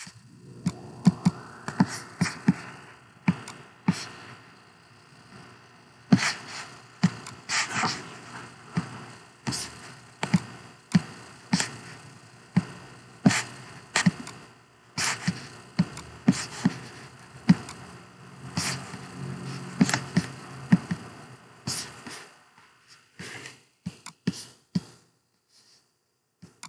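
A long series of irregular sharp clicks and knocks, about one to two a second, in a small room.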